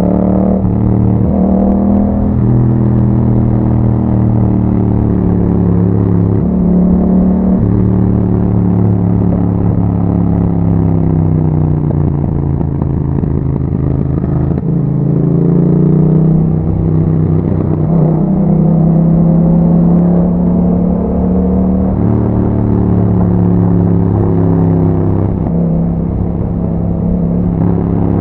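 A 2021 Yamaha MT-07's 689 cc parallel-twin engine running through an Akrapovic exhaust while the bike is ridden. The engine note climbs and drops several times, with sudden pitch changes like gear shifts and changes of throttle.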